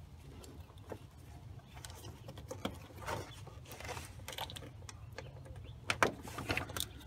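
Scattered light clicks and knocks of hoses, clamps and fittings being handled and pushed into place while a car radiator's lines are connected, the sharpest knock about six seconds in. A steady low hum lies underneath.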